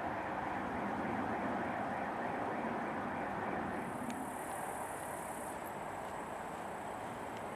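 Train running past on the line: a steady rolling noise of wheels on rails that eases slightly after about four seconds, with a few faint clicks.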